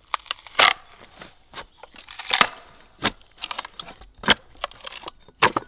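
Froe being knocked and levered through a block of ash to split off a shingle: a run of sharp knocks and cracks, with two longer stretches of crackling, tearing wood as the grain parts.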